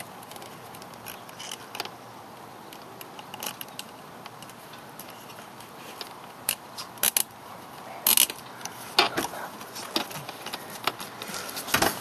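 Nylon cable ties being pulled tight around a car's rubber air-intake hose, their ratchets clicking in short runs, with plastic handling clicks. The pulls come in louder bursts in the second half.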